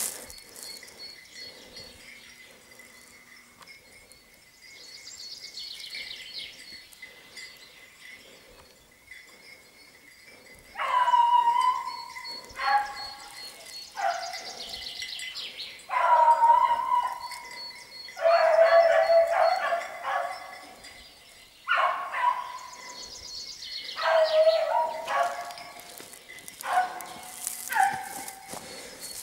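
Beagle baying, a run of loud drawn-out bays starting about eleven seconds in and repeating every second or two: a hound giving voice while trailing a hare. Birdsong with high falling trills is heard throughout.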